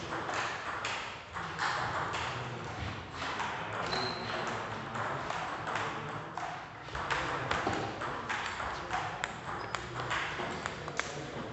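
Table tennis rally: the ball clicking off the rubber paddles and bouncing on the table in quick, irregular succession.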